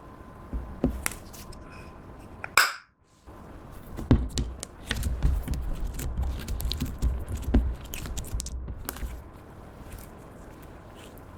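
Clear slime mixed with makeup being squished and kneaded by hand, making sticky clicks, pops and soft thuds. The clicking is densest from about four to nine seconds in.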